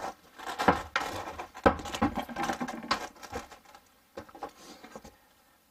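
Irregular knocks, clicks and rustling from handling and moving about, dying away about four seconds in.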